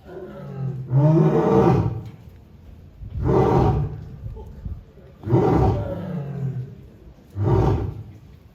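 Male lion roaring: four loud roars about two seconds apart, the last one shorter, with quieter moaning calls between them.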